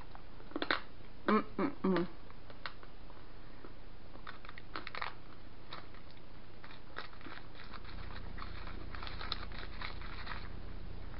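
Candy being eaten and handled: a couple of short hummed mouth sounds in the first two seconds, then light scattered clicks and crinkles through the middle and later part.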